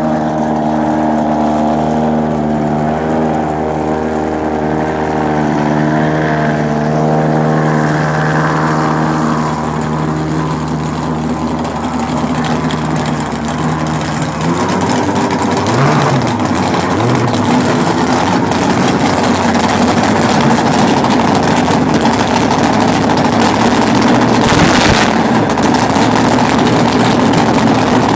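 A drag racing car's engine running loud at a steady speed after a burnout. About halfway through, its even note turns rougher and noisier, and near the end there is a brief hiss.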